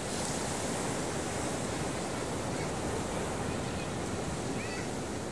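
Ocean surf washing on a beach: a steady, even rush of breaking waves with no single crash standing out.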